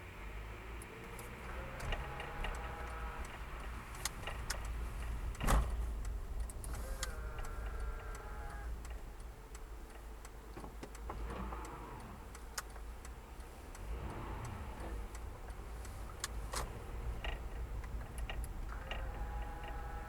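Car cabin on a test drive: a steady low road and engine rumble, with scattered ticks and clicks, one louder knock about five seconds in. Brief squeak-like tones come every few seconds. This is the kind of abnormal noise the drive is meant to track down.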